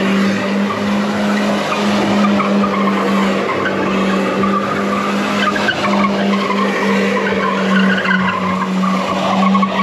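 Car doing donuts on paving stones, its tyres squealing and skidding continuously while its engine holds a steady high drone under load.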